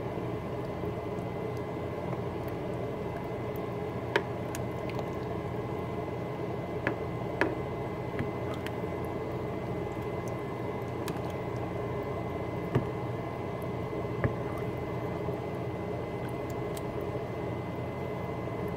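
Thick chili of beans, tomatoes and ground turkey being stirred in a crock pot with a spoon, with a few sharp clicks as the spoon knocks against the pot. A steady hum runs underneath.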